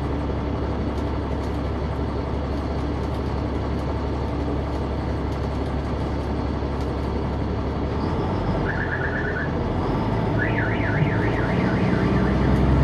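Caterpillar C-9 diesel engine of an articulated transit bus heard from the rear seats, running steadily, then changing note about two-thirds in and growing louder toward the end. Over it a short high chirping tone sounds, then a high tone sweeps rapidly up and down for a second or two.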